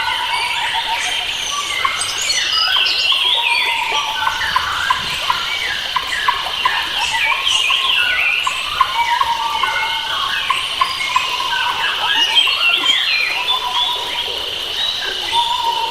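Chorus of many wild forest birds chirping and singing at once, with quick overlapping calls and warbles, over a steady high-pitched hum.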